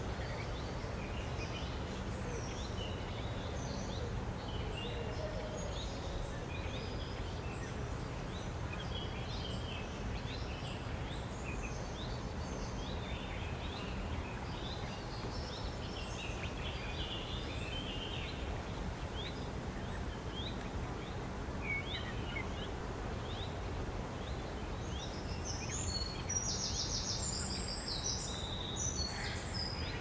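Birds calling over a steady low outdoor background noise: short high chirps scattered throughout, with a louder run of rapid high notes about three quarters of the way in.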